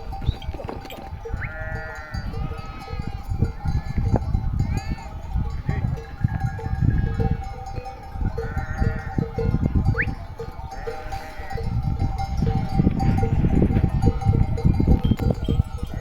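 A flock of sheep bleating, short calls overlapping every second or two. Behind them a steady, evenly paced ringing runs under a heavy low rumble.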